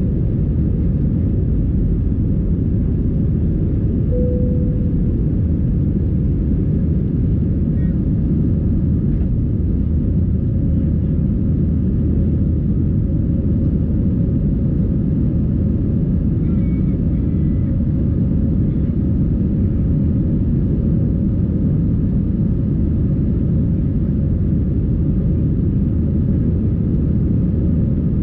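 Steady low rumble of engine and airflow noise inside the cabin of an Airbus A320-200 airliner, unchanging throughout.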